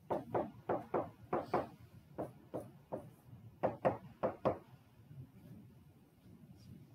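A run of about a dozen light, sharp knocks at an uneven pace, stopping about four and a half seconds in.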